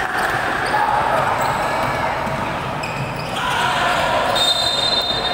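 Indoor basketball game: a ball bouncing on the hardwood court and players' voices calling out, echoing in a large gym. A thin, high, steady tone comes in near the end.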